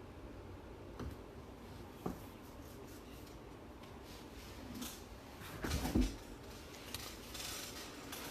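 Handling noises on a tabletop: a few scattered light clicks, then a louder cluster of knocks and rustling about six seconds in.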